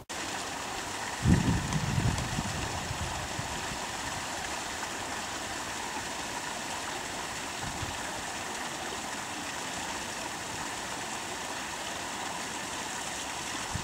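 Steady rush of running water, with a short low buffet of wind on the microphone about a second in.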